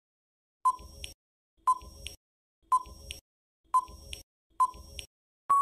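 Quiz countdown timer sound effect: five short electronic beeps, one a second, then a long steady beep begins right at the end as time runs out.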